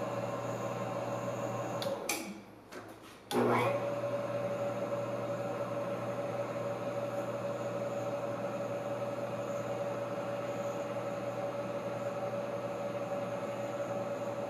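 Milling machine running with a steady hum. It stops about two seconds in and starts again about a second later, quickly spinning back up.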